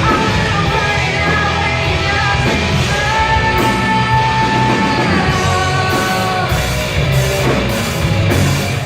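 Rock song playing loudly: a singer holding long notes over distorted guitars and drums.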